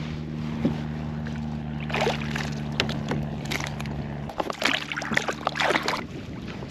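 Water splashing and sloshing beside a fishing kayak over a steady low hum. The splashes come irregularly from about two seconds in.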